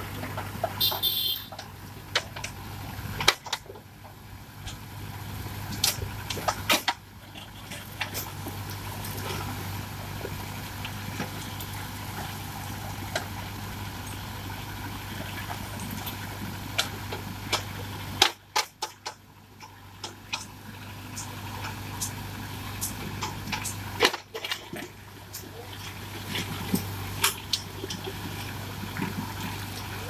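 Mahindra tractor's diesel engine running steadily while its AgriBULL backhoe bucket digs into a pile of broken bricks and stone, with repeated clatters and knocks of rubble against the bucket.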